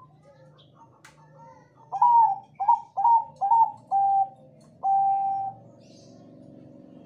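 Zebra dove (Bangkok-bred perkutut) singing its cooing song: about two seconds in, a quick run of about five short clipped notes, then one longer drawn-out note just before the five-second mark.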